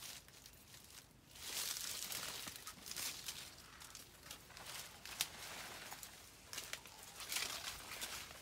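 Leaves and branches of a plum tree rustling in uneven bursts as a person climbs up through it, with a few sharp clicks from twigs and bark.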